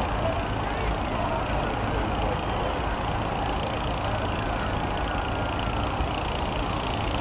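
School bus engines running at a demolition derby, a steady dense mix of heavy engine noise.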